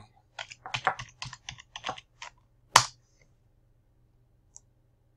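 Typing on a computer keyboard: a quick, uneven run of about a dozen key presses, then one louder click about half a second later.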